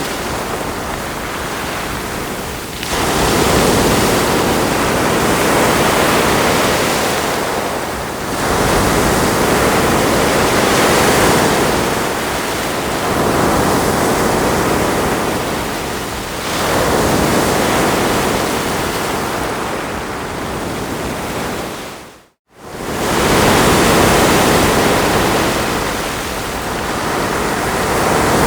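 Ocean waves washing onto a shore: a continuous wash of surf that swells and eases every four to five seconds. About three quarters of the way through, the sound cuts out for an instant and then comes straight back.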